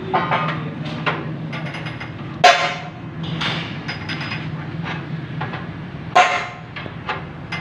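Metal clanks and rattles from a tine cultivator's folding wing and its long hand lever as the lever is worked and the frame lifts. The two loudest clanks come about two and a half seconds in and about six seconds in, over a steady low hum.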